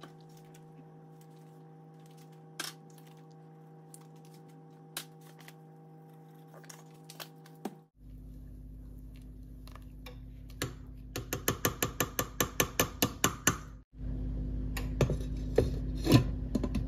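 Knife chopping onions on a cutting board: a quick, even run of about five chops a second for nearly three seconds past the middle, with scattered single knocks of kitchen utensils before and after.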